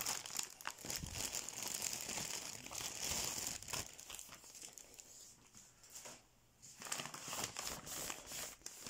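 A bag crinkling and rustling as a can wrapped in it is unwrapped by hand. The rustling stops for a moment about six seconds in, then goes on.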